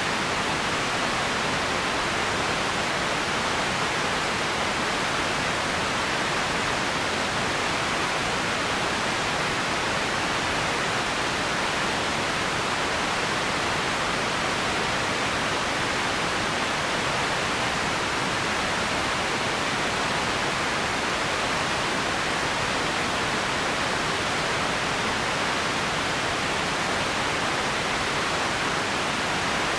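Empty ambience noise: a steady, even hiss that never changes, with no distinct events in it.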